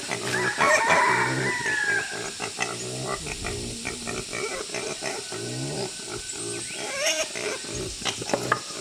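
Domestic pig grunting repeatedly while being fed, with a higher gliding call about a second in.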